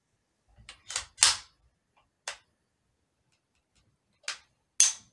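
Ruger PC 9mm carbine's action being worked in a function test: about five sharp metallic clacks, a quick pair, a single, then another quick pair, as the bolt is cycled and the trigger tried. The reassembled action is working properly.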